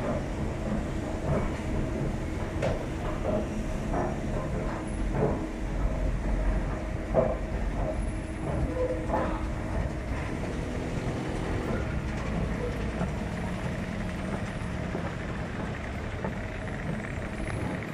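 Métro escalator running with a steady mechanical hum and irregular clacks from its steps, giving way after about eight seconds to an even rumble.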